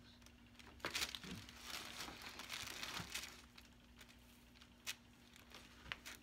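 Rustling and shuffling of a body and clothing moving on a chiropractic treatment table while a shoulder is positioned, most of it in the first half, with a few sharp clicks.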